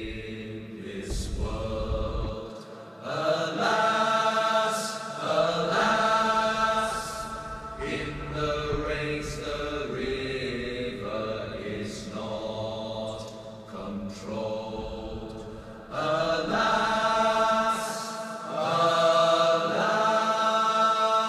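A slow, chant-like song: a voice singing long held notes in phrases of a few seconds, with short breaks between phrases.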